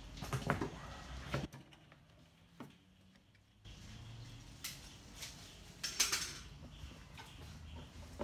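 Cardboard shipping box being handled: its flaps folded back and the inner box shifted, in a few short rustles and knocks, first in a quick cluster and again about six seconds in.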